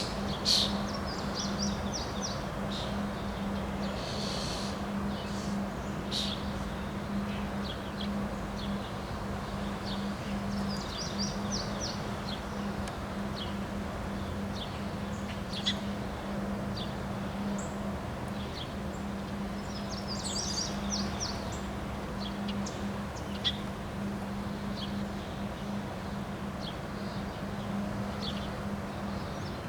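Small birds chirping in short repeated trills over a steady rushing noise of wind, with a constant low hum underneath.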